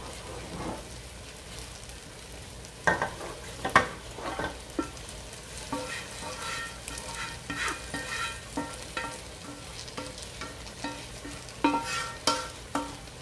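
Cooked beef being added to rice frying in an aluminium pot and stirred in with a wooden spatula: scraping and knocks against the pot over a low sizzle. The sharpest knocks come about three and four seconds in, and scraping grows frequent in the second half.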